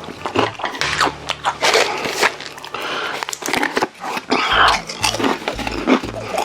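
Close-miked chewing and biting of saucy rosé braised chicken: a dense run of wet clicks and smacks. Background music with a stepped bass line plays underneath.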